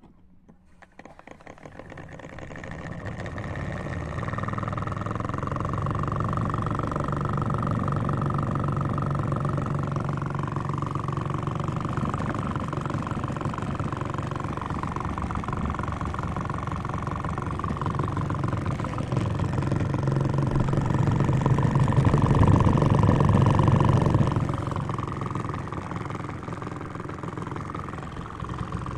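Motor of a homemade washing machine starting up and running steadily, its hum building over the first few seconds. It grows louder about twenty seconds in, then eases back near the end.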